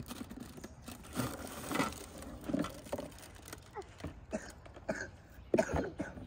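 Cardboard box and packaging rustling and scraping as a non-stick deep fry pan is pulled out of its box, in several short, irregular bursts, the loudest about two seconds in and again near the end.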